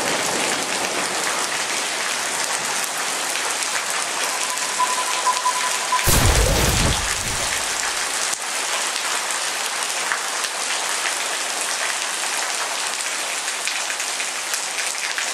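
Rain and thunderstorm sound effect: steady rain hiss with a single thunderclap about six seconds in, the loudest moment, rumbling on for a second or two. A brief steady high tone sounds just before the clap, and the whole sound cuts off suddenly at the end.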